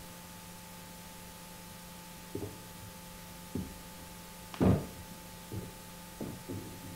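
Slow, irregular dull thumps, about one a second starting a couple of seconds in, the loudest near the middle, over a steady low hum.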